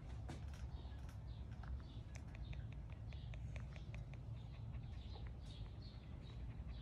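Close-up handling noise of a miniature Schnauzer puppy's fur rubbing against the phone, a steady low rumble. Over it come small soft clicks, a quick run of them at about five a second in the middle, and a few faint high chirps.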